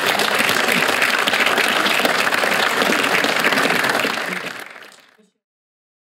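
Audience applauding steadily, fading out about four seconds in.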